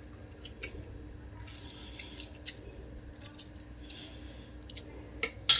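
Lemon juice dripping into a bowl of water as a lemon half is squeezed by hand: scattered faint drips and small splashes, with one sharp click near the end.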